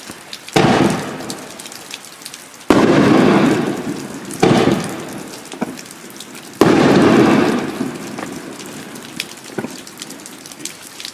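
Consumer aerial firework going off: four loud bursts about two seconds apart, each trailing off into a crackling, sizzling hiss.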